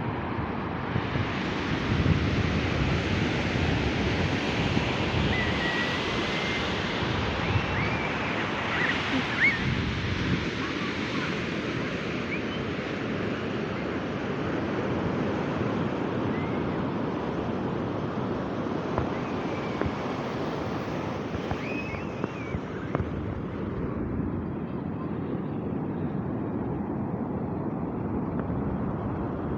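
Ocean surf washing onto a beach, with wind buffeting the microphone. A few faint high cries come through here and there.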